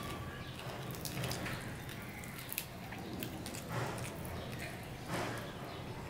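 Close-miked eating sounds: a person chewing rice and fried small fish, with irregular wet mouth clicks and smacks and the soft squish of fingers mixing rice on a plate.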